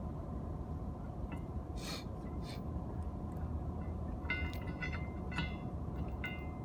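An old rusty shackle and anchor chain clinking as they are handled and fitted together: a few brief clicks, then a cluster of short ringing metal clinks in the second half, over a steady low rumble.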